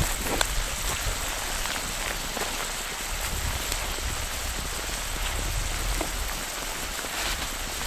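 Food sizzling in a cast iron pan over a campfire: a steady hiss with scattered small pops and crackles.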